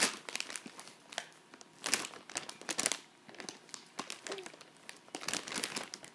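Family-size Doritos chip bag crinkling in short bursts with quieter pauses between as it is handled and grabbed.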